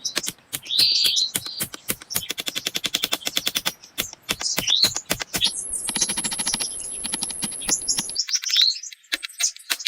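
Rapid, irregular dry clicks and taps, many per second, with birds chirping in short rising calls. A thin steady high tone and a denser noise run through the middle few seconds.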